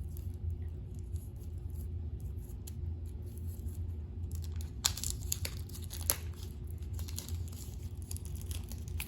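Packaging crinkling and tearing as a card deck is unwrapped by hand: scattered crackles, sparse at first and denser from about five seconds in, over a steady low hum.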